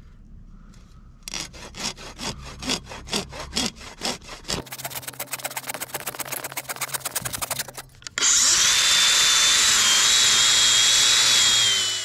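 Wyoming saw cutting through rubber track belting in back-and-forth strokes that get faster about halfway through. About two-thirds in, a DeWalt power tool starts and runs steadily with a high whine, much louder than the sawing.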